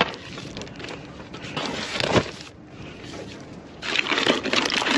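Cardboard boxes and plastic-wrapped frozen food packages being rummaged through by hand: rustling and crinkling, with a knock about two seconds in and louder crinkling from about four seconds.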